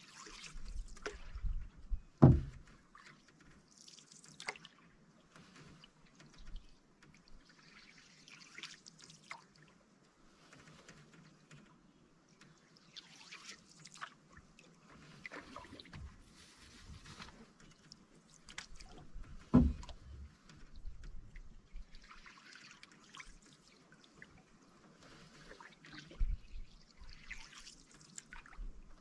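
Canoe paddle strokes in calm water, a splash and trickle of drips every few seconds. Two sharp thumps, about two seconds in and again about two-thirds of the way through, are the loudest sounds.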